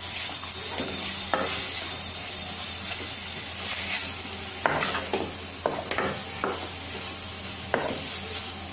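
Spatula stirring drumstick flowers, onion and grated coconut frying in a metal kadai: a steady sizzle with scattered clicks and scrapes of the spatula against the pan, more of them in the second half.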